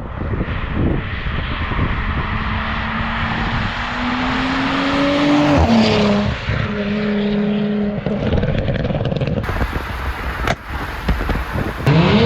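Audi B9 S4's 3.0-litre turbocharged V6 running through an exhaust with a catless downpipe and resonator delete. The engine note climbs slowly, drops sharply a little before halfway, then holds steady, and starts rising again at the very end.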